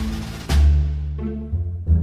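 Background music with deep, drum-like pitched notes struck several times, each ringing and fading.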